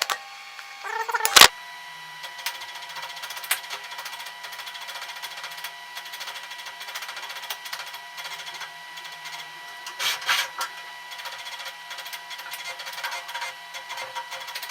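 A sharp knock about a second and a half in, then a faint steady mechanical whir with small clicks, and a brief louder rattle about ten seconds in.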